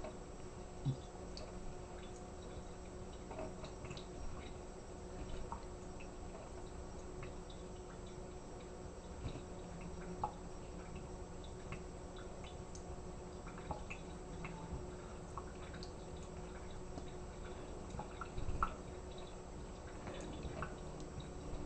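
Thin stream of tap water from a kitchen faucet trickling into a stainless steel sink, with scattered small drips and clicks throughout and a slightly louder cluster of them near the end.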